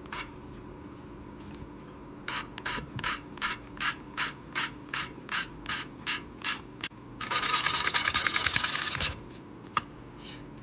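Intake valve of a Briggs & Stratton 12 hp I/C engine being lapped against its seat with valve lapping compound: gritty rasping strokes, about three a second, then about two seconds of faster continuous grinding, the loudest part.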